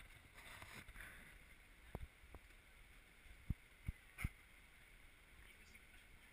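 Near silence, muffled by a waterproof camera housing, broken by five soft knocks between about two and four and a half seconds in: footsteps on stone steps, the last three the loudest.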